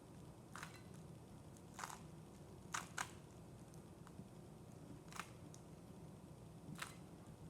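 Rubik's cube layers being turned by hand during a solve: a handful of faint, sharp plastic clicks at irregular intervals.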